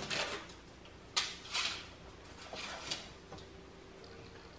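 Scattered short rustles and clicks of hand tools and small parts being handled. The loudest sharp click comes about a second in.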